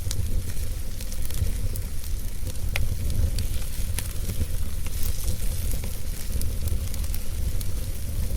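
Wood fire crackling, with scattered sharp pops and a steady hiss over a constant low rumble.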